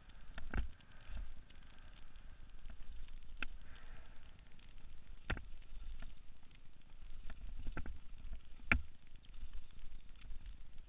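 Helmet-camera audio on a downhill mountain bike run: a low wind rumble on the microphone, broken by sharp knocks and clatters from the bike and camera jolting over bumps, about five loud ones.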